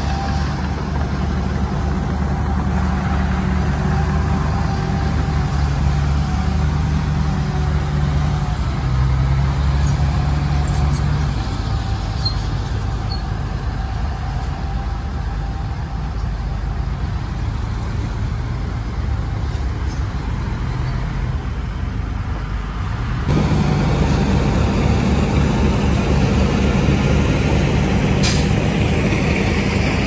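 Heavy diesel earthmoving machinery running at work, a steady low engine sound. The engine eases off about a third of the way in, then comes back abruptly louder about three quarters through. A brief sharp hiss or clank is heard near the end.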